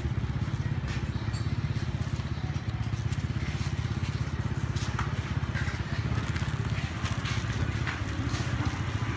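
A small engine running steadily nearby, a low rumble with a fast, even pulse, with a few faint crinkles of a plastic bag over it.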